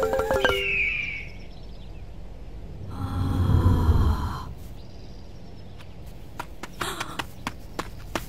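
A cartoon ostrich chick's vocal effect: a low, rough sound about three seconds in, lasting about a second. It follows the end of a percussive music cue and a short high chirp, and scattered light taps come after it.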